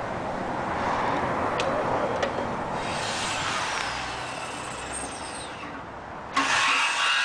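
A motor vehicle running, a steady noisy rush. It cuts off abruptly about six seconds in and a different, brighter sound takes over.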